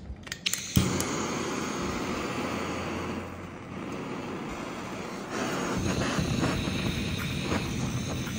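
Handheld butane torch head on a gas canister: a few sharp clicks as it is lit, then the flame's steady hissing rush, which eases off for a couple of seconds and grows louder about five seconds in as the flame is turned up.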